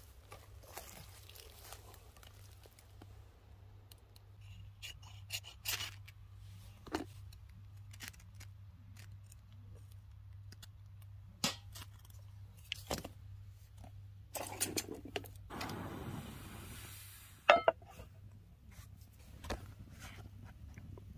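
Camp gear and kindling being handled to start a fire: scattered clinks, scrapes and crunches. Near three-quarters of the way through, a hiss lasts about two seconds and ends in a sharp, loud click.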